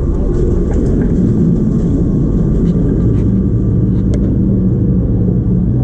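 Cruise ship lifeboat's inboard diesel engine idling with a steady low rumble, heard from inside the enclosed boat.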